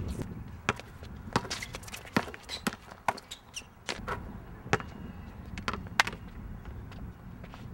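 Basketball bouncing on a court: sharp thuds at an uneven pace, about one or two a second, with a few short high squeaks between them around the middle.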